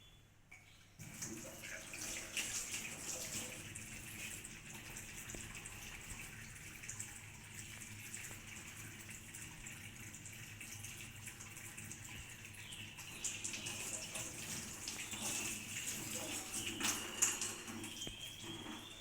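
Tap water running into a sink, with hands being washed under it. It starts about a second in.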